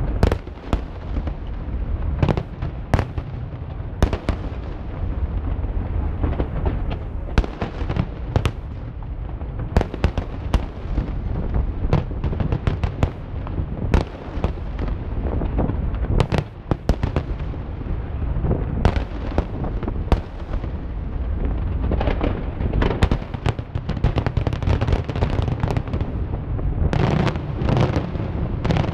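Fireworks display in its closing barrage: a rapid, continuous run of aerial shell bursts, many sharp bangs over a constant rumble.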